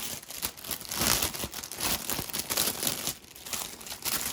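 Plastic bags holding model-kit parts crinkling and rustling as they are handled and lifted out of the box, in irregular bursts with a short lull a little past three seconds in.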